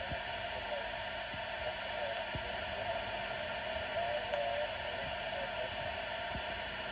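CB radio receiving on the 11-metre band in upper sideband, its speaker giving a steady hiss of band static with a faint wavering tone from a weak, garbled sideband signal and scattered faint low clicks.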